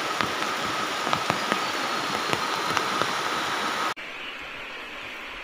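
Swollen Tizu River in flood, rushing water heard as a steady, even noise with scattered sharp ticks and a faint steady high tone. About four seconds in, it cuts abruptly to a quieter, duller rush.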